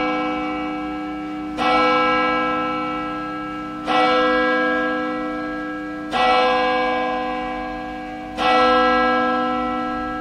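Single church bell tolling, struck four times about two and a quarter seconds apart, each stroke ringing on and fading before the next.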